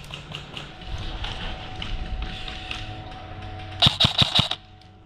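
A quick burst of about five airsoft gun shots about four seconds in, over light rustling and ticking from movement.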